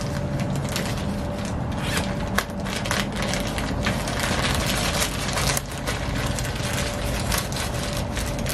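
Clear plastic zip-lock bag crinkling and rustling as a tack rag is handled and stuffed into it, in many quick crackles. A steady low hum runs underneath.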